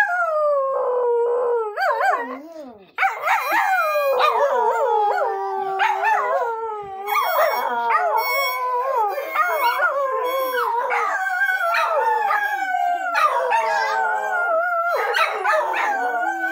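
Dogs howling along to a harmonica: long, wavering howls that slide up and down in pitch, with a brief break about three seconds in.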